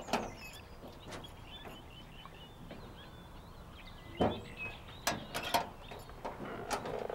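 Birds chirping faintly over quiet outdoor background noise, with a few sharp knocks about four and five seconds in.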